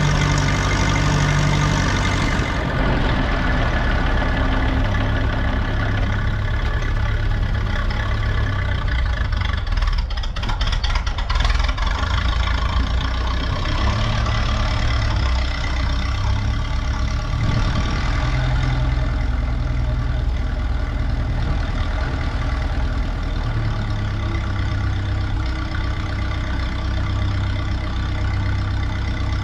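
Ferguson T20 tractor engine running steadily, its pitch rising and falling slightly as it works, with a brief clatter about ten seconds in.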